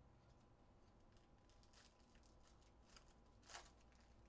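Faint crinkling and tearing of a foil trading-card pack wrapper being pulled open, with a sharper crackle about three and a half seconds in.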